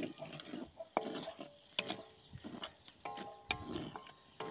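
Wooden spatula stirring and scraping chopped tomatoes and onions in hot oil in a steel karahi, knocking against the pan now and then, with the metal briefly ringing after the later knocks, over a faint sizzle.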